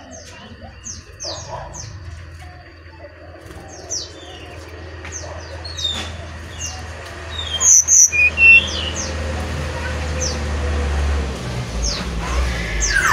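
Brown-chested jungle flycatcher calling: a long series of short, high, falling notes, with a louder cluster of high notes about eight seconds in. A low steady hum runs underneath and grows louder near the end.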